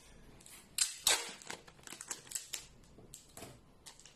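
Clear packing tape being picked loose and pulled off its roll: a series of short crackling rips.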